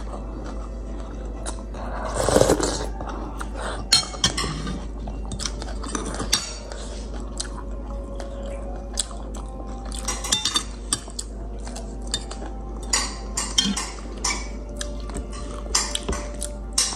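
A person slurping rice noodles from a bowl of khao poon soup and chewing, with a loud slurp about two seconds in, and spoon and chopsticks clicking against the bowl many times.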